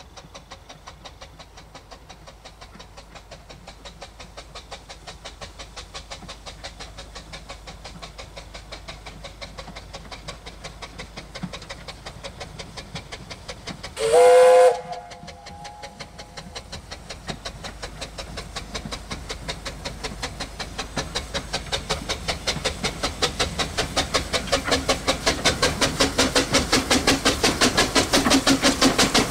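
Bure Valley Railway No. 9 Mark Timothy, a 15-inch gauge steam locomotive, approaching under power: a steady rhythm of exhaust beats that grows louder throughout. About halfway through comes one short, loud whistle blast, a warning for the level crossing ahead.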